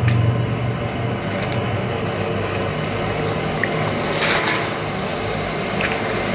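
Kerupuk opak crackers deep-frying in hot oil in a wok: a steady sizzle and bubble of frying oil.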